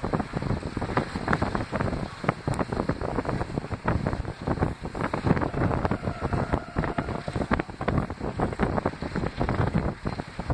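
Wind buffeting the microphone in irregular gusts on a moving train, covering the noise of the train's running.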